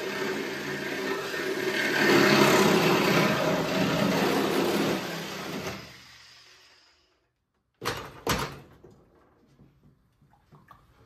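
A power cutting tool running and cutting through the sheet-steel floor pan of a car body, then winding down and stopping about six seconds in. After a short gap come two sharp knocks.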